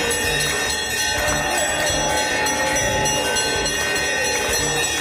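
Hand-rung brass temple bells ringing without pause during an aarti, a dense metallic clangour of many overlapping tones.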